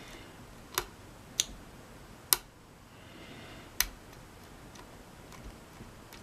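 A hook pick working the pin stacks of a tensioned mortise lock cylinder: a few sharp little metallic clicks about a second apart, as the pins and core shift while spool pins are being set.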